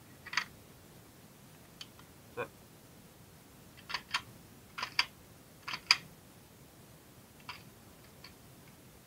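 Glock 26 pistol's slide and action clicking as it is put back on the frame and worked by hand: a string of sharp clicks, several coming in close pairs about a fifth of a second apart, typical of the pistol being checked for function after reassembly.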